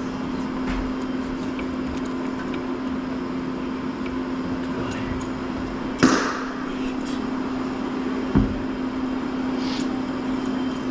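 A steady machine hum with a sharp bang about six seconds in, then a duller thump about two seconds later.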